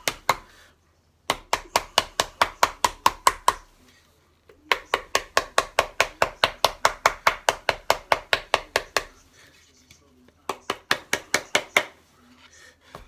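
Rubber mallet tapping edge trim into the edge of a wooden furniture panel: quick light strikes, about five a second, in three runs with short pauses between them.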